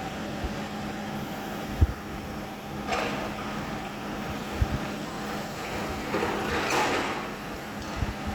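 A machine engine running steadily at one pitch, with a few dull thumps and two short bursts of scraping noise.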